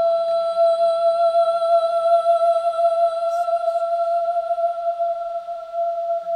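Electroacoustic music: a single long, high, steady note, with faint higher tones above it and a quiet low hum beneath.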